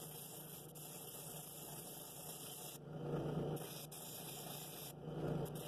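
Drill press running a sanding drum, its steady hum joined by the rasp of the sanding sleeve against the inside of a cherry wood bowl. The sanding swells louder about three seconds in and again near the end as the bowl is pressed to the drum.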